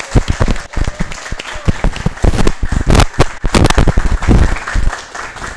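Loud, irregular hand clapping: sharp separate claps with some heavy thuds among them, applause on the call for the break.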